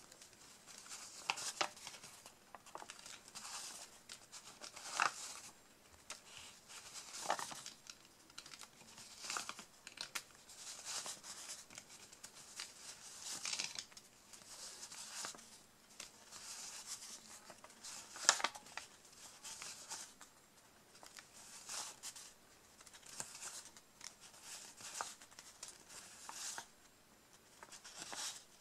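Paper banknotes being counted by hand: each 100-euro note is rustled and snapped as it is peeled off and laid on the pile, about one every second or two.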